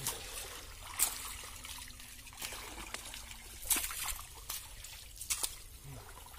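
Water splashing and trickling as a wet cast net is gathered by hand and lifted out of shallow river water, with a few sharper splashes about a second in, near four seconds and just past five seconds.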